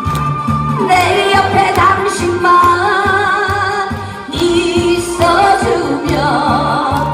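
A woman singing a Korean trot song into a microphone over a backing track with a steady bass beat. She holds long notes with vibrato, with a brief lull about four seconds in.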